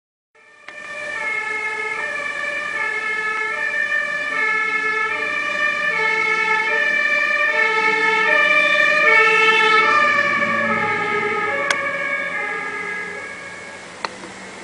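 Fire engine's two-tone siren alternating between a high and a low note, growing louder as the truck approaches. Around ten seconds in, the pitch drops as it passes, with the rumble of the truck, and then the siren fades away.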